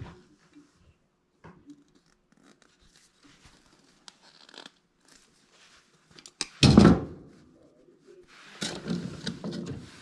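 Wire strippers cutting and stripping small control wires: faint snips, clicks and scrapes of the tool on the wire. About two-thirds of the way through comes one loud short burst of noise, and near the end a longer rustle of handling noise.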